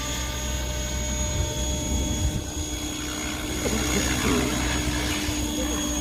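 Mikado LOGO 690 electric RC helicopter in flight: a steady rotor hum with a high electric motor whine, a sound the pilots call soft.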